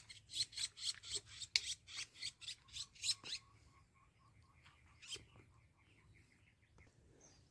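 Quiet, scratchy rustling and scraping of brush in quick strokes, about four a second, for the first three seconds or so. Then a few faint ticks and one short scrape: hands working in the bushes to free a small bird caught on a birdlime trap.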